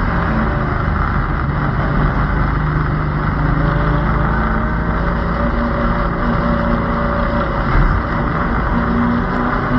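Stock car's engine running hard at racing speed, heard from a roof-mounted camera under a heavy rush of wind and road noise. The engine note rises and falls as the car works through the turn and down the straight, with a brief drop just before the end.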